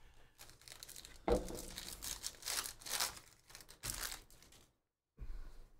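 Foil wrapper of a Panini Prizm football hobby pack being torn open and crinkled as the cards are pulled out, in irregular rustling bursts with a soft thump about a second in. The rustling stops briefly near the end.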